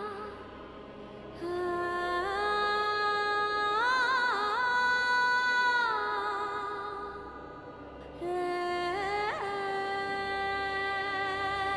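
Background music: a sustained, wordless vocal line of long held notes. It enters about a second and a half in and again about eight seconds in.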